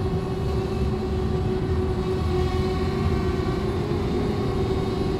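DJI Spark quadcopter's propellers humming steadily in flight, one held pitch with fainter overtones over a low rumble of wind on the microphone.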